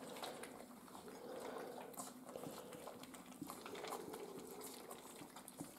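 Miniature schnauzer puppies eating dry kibble from a stainless steel bowl: faint crunching and small scattered clicks of kibble and teeth against the metal.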